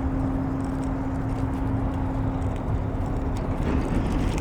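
Steady low rumble of road traffic, with a constant low hum running under it.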